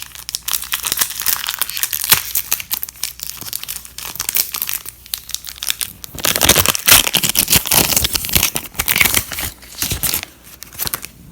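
Pokémon booster pack's foil wrapper crinkling and tearing as it is opened by hand, loudest from about six to ten seconds in.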